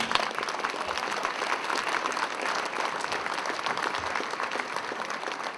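Audience applause: many people clapping steadily, easing off slightly near the end.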